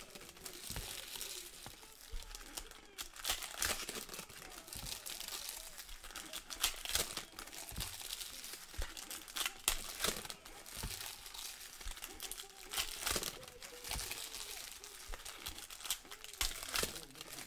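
Trading-card pack wrappers crinkling and tearing as packs are ripped open, with the cards rustling as they are handled: an irregular string of sharp crackles and rustles.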